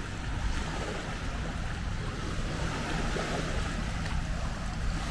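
Small sea waves washing over the sand in shallow water, steady and unbroken, with wind rumbling on the microphone.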